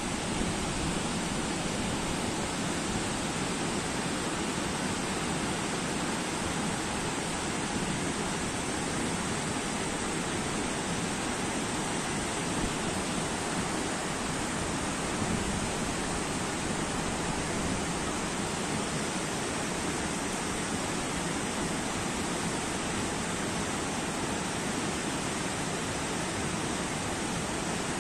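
Flooded mountain stream rushing over rocks and boulders, swollen after heavy rain, in a steady, unbroken noise.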